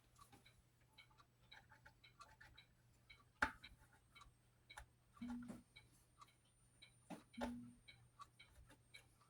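Faint, fast, even ticking of a mechanical clock. A single sharp knock comes about three and a half seconds in, and a couple of short low thumps of handling come later.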